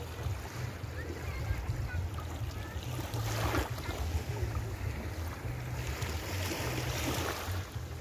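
Small waves washing up on a sandy beach, with two swashes about three and six seconds in, over a steady low rumble of wind on the microphone.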